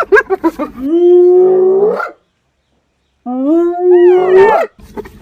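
Hyena calling: a quick run of short laughing calls, then two long drawn-out howls about a second apart, each rising in pitch at its end, and a few short calls again near the end.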